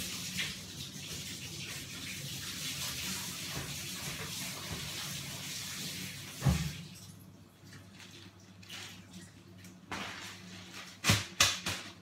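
Water running steadily, like a tap, cut off about six and a half seconds in with a thump; then a few sharp knocks near the end.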